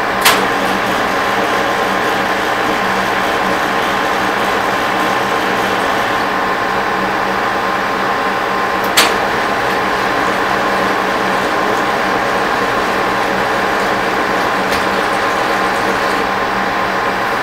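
1943 Sidney 16x54 engine lathe running under power, a steady, even mechanical noise from its drive and gear train with a low hum underneath. Two sharp clicks stand out, one right at the start and one about halfway through.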